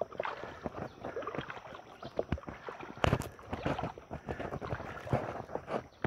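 Shallow creek water sloshing and splashing in irregular strokes, with one louder splash about three seconds in.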